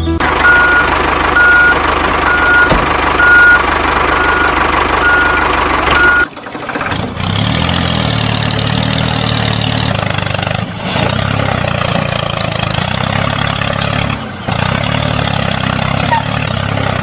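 Heavy truck engine running with a reversing alarm beeping steadily, about one beep every three-quarters of a second. Six seconds in the beeps stop after a brief dip, and the engine keeps running on its own.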